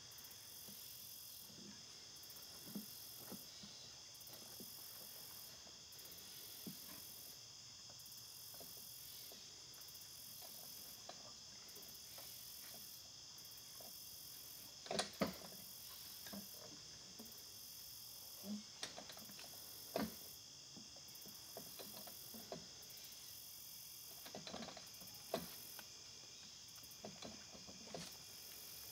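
Steady chorus of crickets and other insects, with a high shrill layer that pulses on and off every second or so. Scattered soft knocks and rustles come through it, the clearest about halfway through and near the end.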